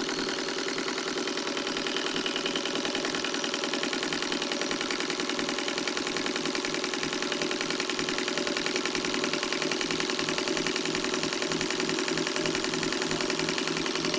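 1947 Singer electric sewing machine running steadily under its foot pedal, motor and needle mechanism making a fast, even mechanical chatter. The machine is dirty and gummed up with chainsaw oil, enough that its motor smokes.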